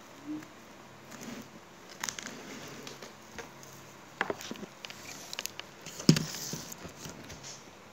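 Hands handling craft materials on a table: scattered rustles, light taps and clicks, with one louder knock about six seconds in.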